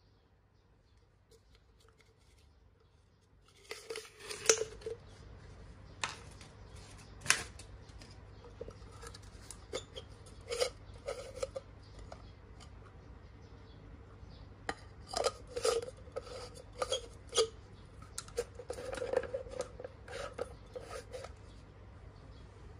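Plastic parts of a portable blender being handled: the clear cup, pink lid and strainer click, knock and rub against each other and the hands in irregular bursts, starting about four seconds in.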